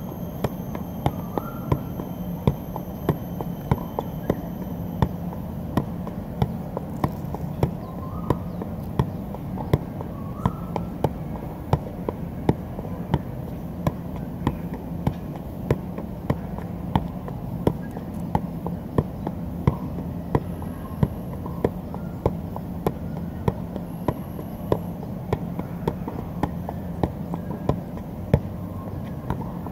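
Soccer ball being juggled, a steady run of dull thuds as the foot strikes the ball at an even pace of roughly two touches a second, without a break.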